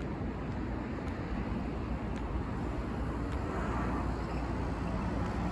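Steady rumble of road traffic, with faint light ticks about once a second.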